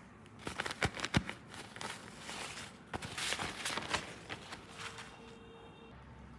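Small plastic toy pieces being handled: a run of sharp clicks and taps, loudest about a second in, with rustling and handling noise between them.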